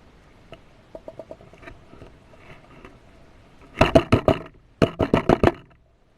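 Rapid sharp clicks or knocks: a few faint ones about a second in, then two loud runs of about six clicks each, roughly eight a second, the second starting about a second after the first.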